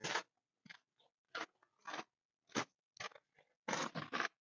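Faint footsteps crunching, about two steps a second, with a closer burst of rustling near the end.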